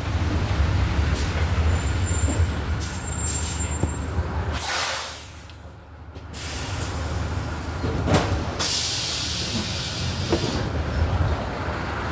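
Volkswagen Volksbus 17.230 OD diesel bus running, with sharp hisses of compressed air from its pneumatic system: a short one about four seconds in, then the engine drops quieter for a moment before picking up again, and a second hiss about eight seconds in that lasts around two seconds.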